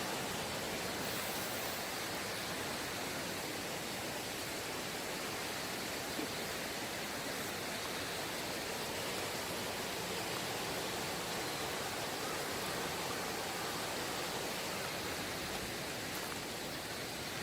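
Valley stream rushing over rocks: a steady, even wash of water noise with no changes.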